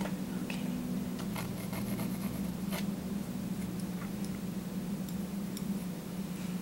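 Palette knife dabbing and scraping oil paint onto a canvas: a scatter of small clicks and scratches, thickest about one to three seconds in, over a steady low hum.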